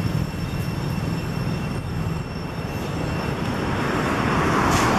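Road traffic: a steady low rumble, with a passing vehicle growing louder over the last second or so.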